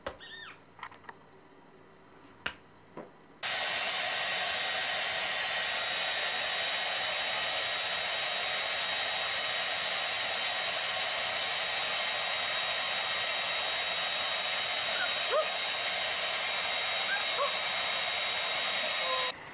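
Handheld hair dryer running steadily with a high whine over its blowing; it starts suddenly about three and a half seconds in after a few faint taps, and cuts off just before the end.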